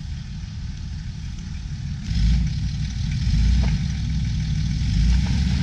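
Land Rover 4x4 engine running with a low rumble. It gets louder about two seconds in and surges a few times, as when pulling on the throttle off-road.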